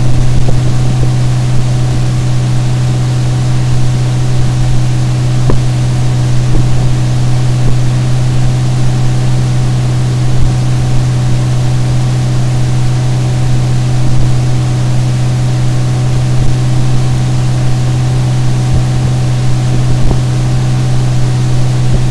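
Mercury 50 hp four-stroke CommandThrust outboard running at a steady speed, a constant-pitch hum that does not change, over a steady rush of wind and water noise from the boat moving underway.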